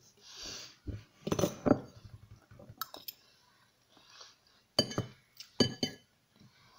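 Metal fork clinking and scraping against a ceramic bowl of pasta: a cluster of clinks about a second and a half in, one sharp ringing clink near three seconds, and two more a little before the end.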